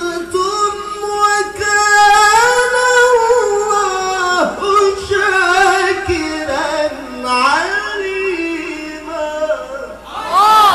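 A male qari reciting the Quran in the melodic mujawwad style into a handheld microphone, holding long ornamented notes that waver and rise and fall in pitch. Right at the end the audience breaks into cheers.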